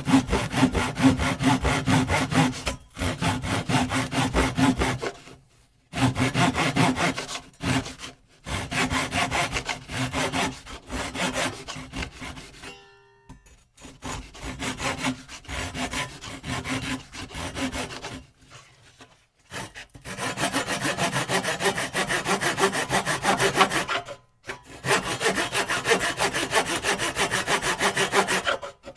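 Hand saw cutting through wood in fast back-and-forth strokes. The strokes come in runs of a few seconds each, broken by several brief pauses.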